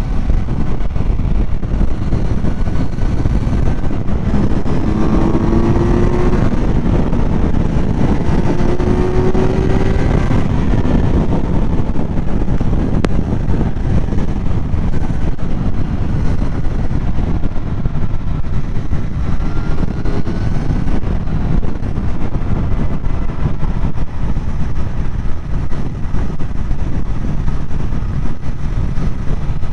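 Kawasaki Z900's inline-four engine running at highway speed under heavy wind rush on the microphone. Between about five and ten seconds in, the engine note rises a couple of times as the bike accelerates.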